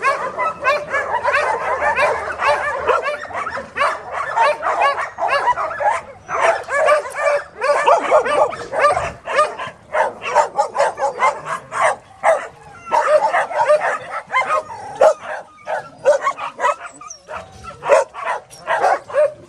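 Many dogs barking at once in a dense chorus of overlapping barks.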